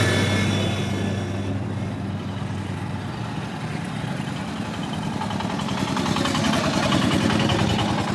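A motor vehicle's engine running with a steady low hum that fades away over the first few seconds, followed by general traffic noise that swells again near the end.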